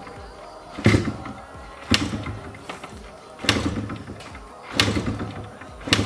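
Kick-starter of a 1987 Yamaha RX100 two-stroke single being kicked five times, about a second apart. Each kick is a sharp clunk followed by a brief churn as the engine turns over without firing: priming kicks with the ignition on during a cold start after two years of storage.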